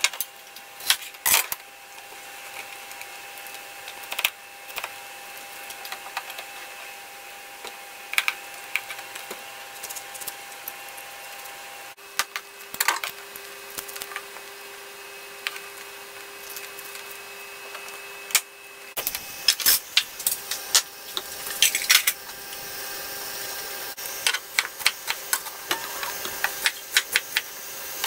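Knife cutting raw fennel bulb on a plastic cutting board: scattered crisp cuts and taps of the blade on the board, turning into a quick run of chopping strokes about two-thirds of the way in, over a faint steady hum.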